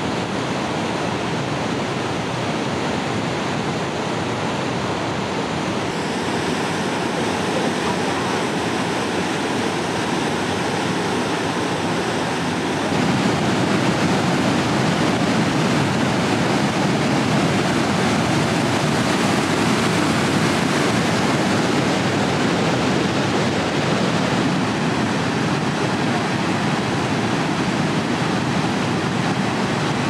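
Steady rushing roar of a large waterfall, growing louder about 13 seconds in.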